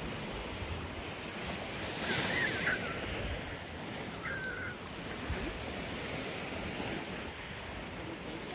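Sea surf washing on the shore with wind buffeting the microphone. Two short, wavering high-pitched tones sound about two seconds apart, a couple of seconds in.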